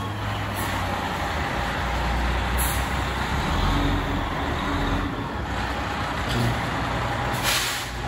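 Fire department ladder truck's diesel engine running as the rig backs slowly into the firehouse bay, with a short hiss of air brakes about seven and a half seconds in.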